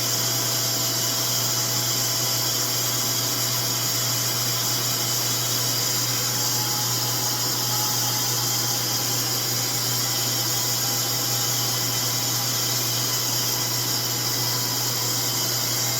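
RevAir reverse-air hair dryer running steadily, a loud, even rush of suction and blown air with a low hum under it, while it dries a damp section of thick coily hair.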